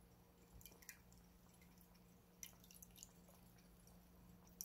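Persian chinchilla cat eating from a bowl: faint, scattered wet mouth clicks and lapping in small clusters.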